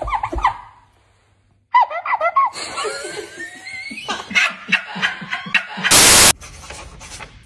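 A few short, wavering high squeaks, then men laughing. About six seconds in comes a loud, brief burst of static-like hiss, a video transition.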